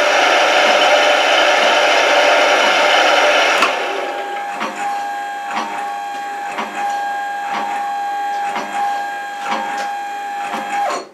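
APMT 1003 indexable end mill cutting steel at 2 mm depth of cut, a loud steady cutting noise that stops suddenly about three and a half seconds in as the cutter runs off the end of the workpiece. The mill's spindle then runs on with a steady whine and irregular light clicks, about one or two a second.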